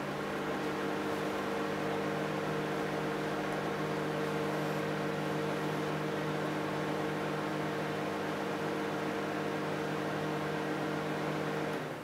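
Daewoo microwave oven running: a steady hum with several steady tones in it, dropping away shortly before the end.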